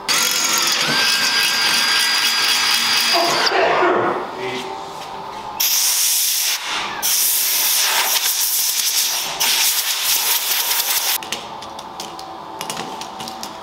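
Compressed-air blow gun hissing in long blasts, blowing drilling debris off a steel crash bar.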